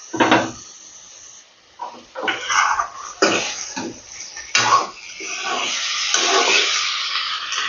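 Steel ladle scraping and turning chopped tomatoes and green chillies through a vegetable fry in a metal kadai, in irregular strokes, with the food sizzling more steadily in the second half.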